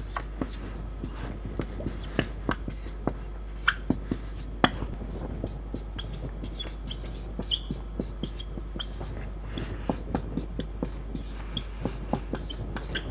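Marker pen writing on a whiteboard: irregular taps and scratches of the strokes, with short high squeaks of the tip now and then, over a steady low hum.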